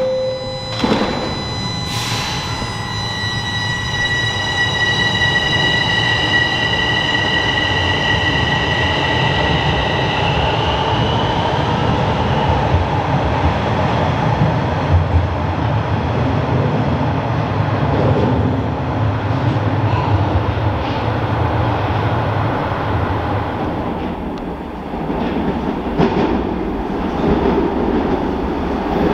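Toronto Rocket subway train pulling out of a station: two thuds as the doors shut, then the electric traction motors' high whine of several steady tones for about ten seconds over the rolling rumble of the wheels. The rumble dips near the end and builds again as another train approaches through the tunnel.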